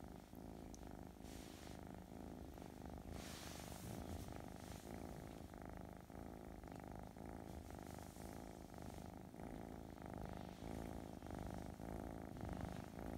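Russian Blue kitten purring steadily up close, relaxed while being stroked.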